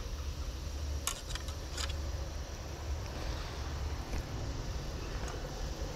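Low, unsteady wind rumble on the microphone, with a quick run of five or six clicks about a second in.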